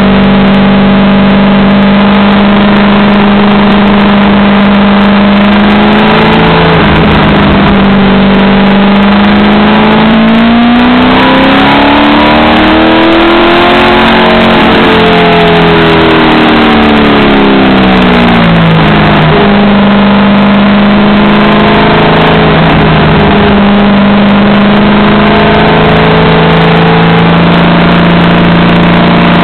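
C5 Corvette's small-block V8 heard from inside the cockpit, running hard at a steady pitch through long stretches. About ten seconds in it revs up for a few seconds, then winds back down to a low note before steadying again, with a few brief dips along the way.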